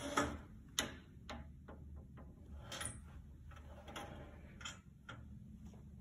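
A series of light, sharp clicks and taps at uneven intervals, about a dozen in all, the loudest two near the start, over a faint low hum.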